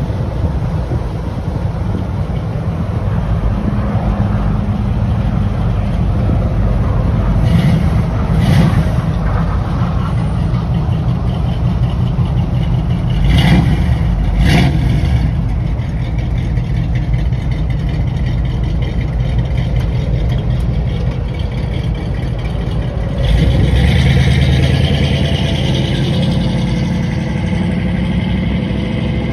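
Chevrolet 350 small-block V8 of a 1969 Camaro SS running steadily at idle, with short blips of throttle about eight and fourteen seconds in. Near the end it gets louder as the car pulls away.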